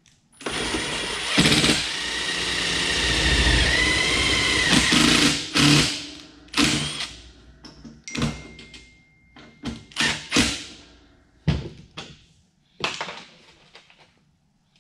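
Cordless drill running for about five seconds, boring a pilot hole through layers of sheet metal, its whine wavering in pitch as it cuts. Then a string of short, sharp clicks and knocks.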